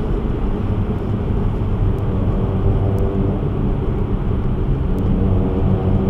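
Steady in-cabin driving noise of a car cruising through a road tunnel: a low engine hum and tyre and road rumble, heard from inside the car.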